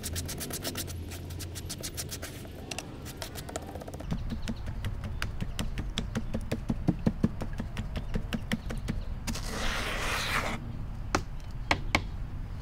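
Ladle scraping and tapping against a stainless steel mesh sieve as wet clay slip is worked through it: a stream of sharp clicks and scrapes. About ten seconds in there is a short wet splash of slip.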